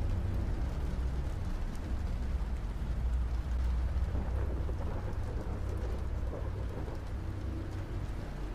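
Steady rain with a low, rolling rumble of thunder underneath, heaviest about halfway through and easing off near the end.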